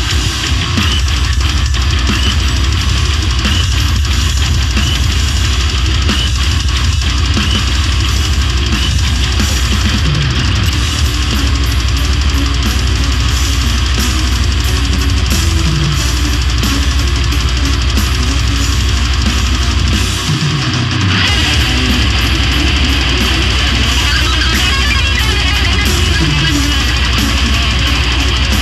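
Loud heavy metal music with electric guitars and a drum kit, playing continuously. The bass drops out briefly about twenty seconds in.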